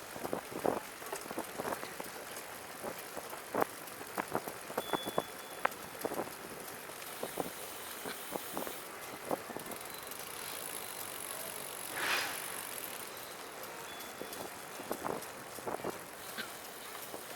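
Recumbent trike rolling, with sharp ticks at irregular spacing throughout. The riders suspect the tick comes from the rear wheel, from a loose spoke or a fender bolt lightly touching the tyre. A short louder hiss comes about twelve seconds in.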